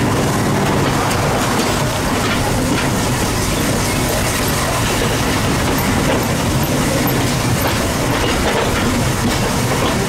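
Steady running noise of a steam-hauled passenger train in motion behind Pennsylvania Railroad B4 0-6-0 steam locomotive 643, heard from the car right behind its tender.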